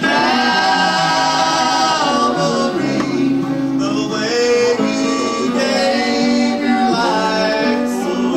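Gospel hymn singing in church with instrumental accompaniment. A long sung note is held for about the first two seconds, then the melody moves on.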